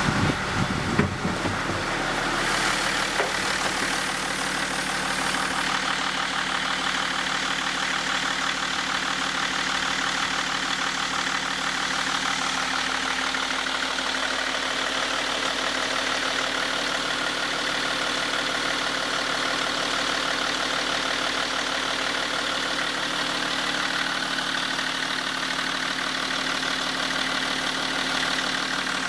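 Opel Omega 2.5 DTI's Y25DT turbodiesel engine idling steadily, with a few brief knocks in the first two seconds.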